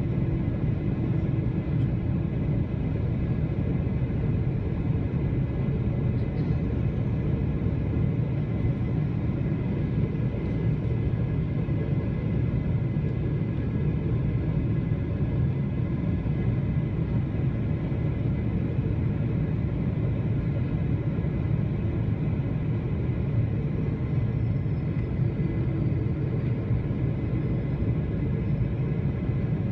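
Steady cabin noise inside a Boeing 777-300 in flight: an even, low rumble of the jet engines and the air rushing past, with no change in pitch or level.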